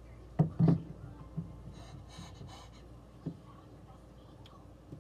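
Small knife cutting into an apple held over a glass tabletop. Two sharp knocks about half a second in, then light scraping and a few faint taps.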